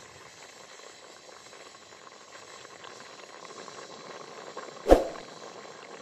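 Watermelon marmalade boiling vigorously in a large aluminium pot: a steady bubbling hiss that grows slightly louder. A single sharp thump comes about five seconds in.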